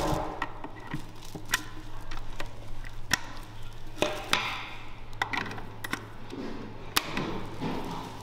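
Scattered sharp clicks and taps from an electric hand mixer and its metal beaters being handled at a stainless steel bowl, with brief rustling of a plastic sheet. The mixer is not running. A steady low hum runs underneath.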